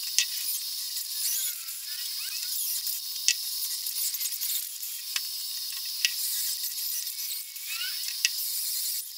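A hand-held drill boring a hole through a steel plate, the twist bit cutting with a high grinding squeal and a few sharp clicks.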